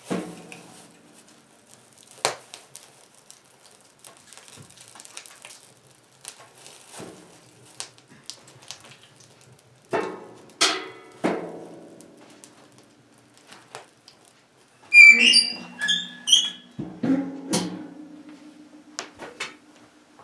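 Split birch logs knocking and thunking as they are loaded into a wood stove's firebox, with several knocks near the start and a run of them around the middle. Near the end there is a short squeaking, then the stove's metal door clanks shut and leaves a low metallic ring.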